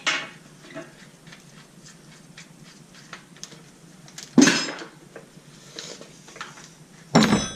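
Metal hand tools and engine parts clinking and clattering during an engine teardown, with small ticks throughout and two louder metallic clatters, one about four seconds in and one near the end.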